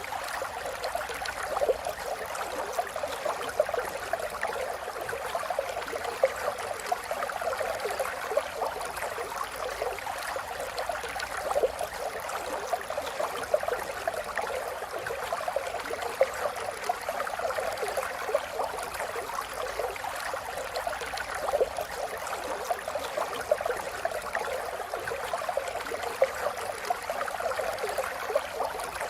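River water flowing over stones, a steady babbling and gurgling rush with many small splashes.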